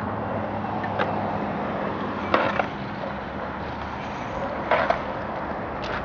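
Skateboard on quick-release wheels rolling over pavement with a steady rolling noise, broken by a few sharp clacks; the loudest come about two and a half seconds in and near five seconds.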